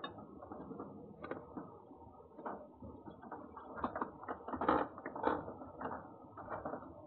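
Cat eating from a metal bowl: irregular crunching and clicking, loudest a little under five seconds in.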